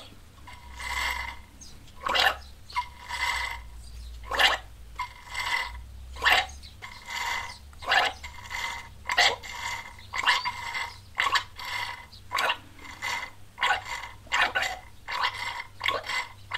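Syringe and hose sucking used engine oil out of a four-stroke lawn mower's crankcase, with repeated slurping, gurgling pulls about once a second. The oil is nearly gone, so air is drawn in along with it.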